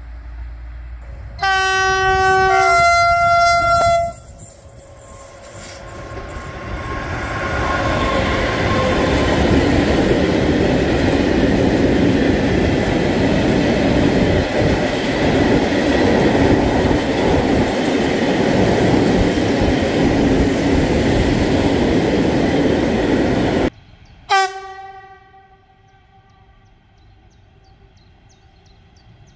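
A train horn sounds two notes, a lower then a higher one, about a second and a half in. Then a freight train of hopper wagons passes close by with a loud, steady rumble of wheels on rails. Near the end the rumble cuts off suddenly: an electric locomotive gives one short horn toot, and after it there is only a faint rumble as it approaches.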